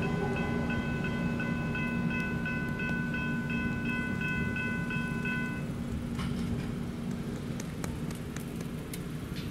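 Level-crossing electronic bells (General Signals E-bells) ringing a steady repeated ding, about three strikes a second, over the fading rumble of a passing train. The bells stop about six seconds in, as the crossing clears and the boom gates begin to rise, and scattered faint clicks follow.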